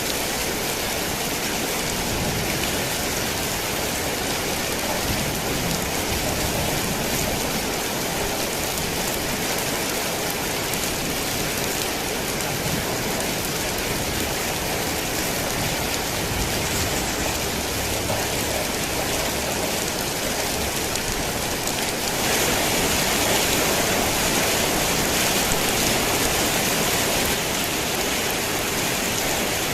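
Heavy rain drumming steadily on a tin roof, swelling slightly for a few seconds about three-quarters of the way through.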